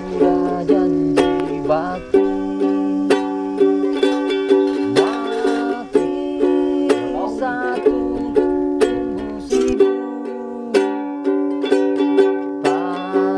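Ukulele being strummed and picked, playing a run of chords with a new stroke about every half second to a second.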